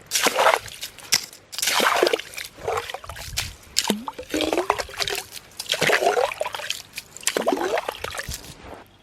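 Water splashing and sloshing in about six separate bursts, roughly one every second and a half, stopping abruptly just before the end.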